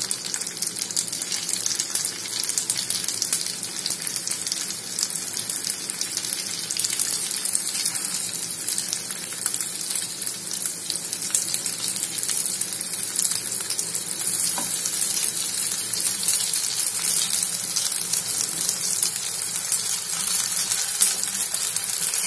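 Oil sizzling and crackling in a shallow frying pan as stuffed chapati cones shallow-fry, growing slightly louder as more cones are laid in.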